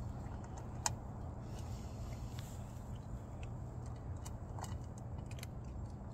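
Cats crunching dry food from a bowl: scattered sharp clicks over a steady low rumble.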